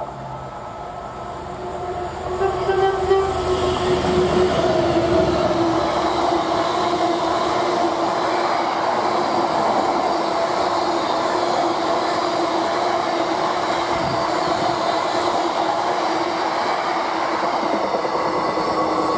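Diesel-hauled freight train passing: the locomotive's engine drone comes up over the first few seconds, then a long steady roar of wagons running on the rails, with a steady tone running through it.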